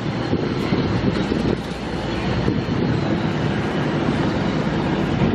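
Narrow-gauge (2 ft 6 in) passenger train running along the track, heard at an open coach window: a steady, loud noise of the coach and its wheels on the rails.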